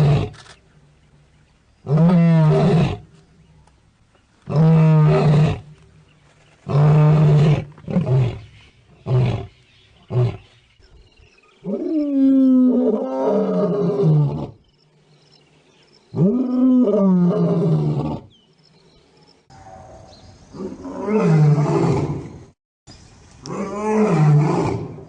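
A string of lion roar sound effects, cut one after another: about ten separate roars and short snarls, each a second or two long, starting and stopping abruptly.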